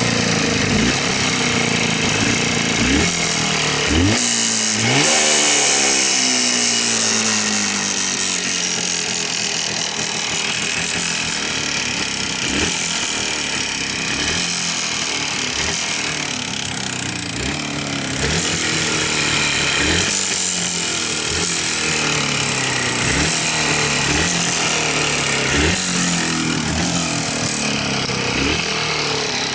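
Jawa 350 two-stroke twin motorcycle engine being blipped over and over, its speed climbing sharply and falling back every second or two. The engine has a knock whose cause the owner cannot name.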